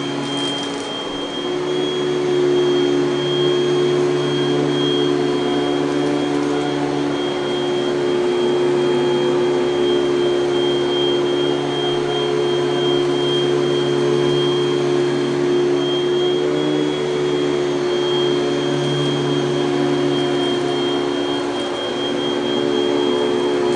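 A 1984 Panasonic Jet-Flo MC-5116 bagged upright vacuum cleaner running steadily, its motor and fan making an even hum with a thin high whine. The fan has been rebalanced after being set improperly.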